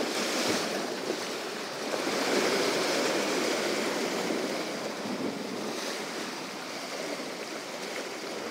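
Sea swell washing and breaking against the shore rocks, surging louder at the start and again about two seconds in.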